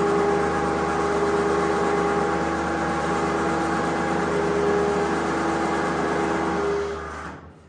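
Battery-powered electric winch running without a load, spooling its synthetic line: a steady motor-and-gear whine that stops about seven seconds in.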